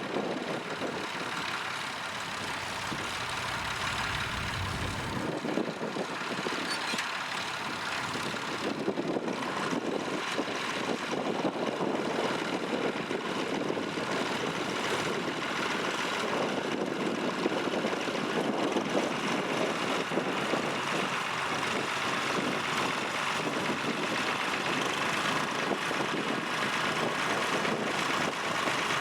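Tractor engine running steadily, a little louder after the first several seconds.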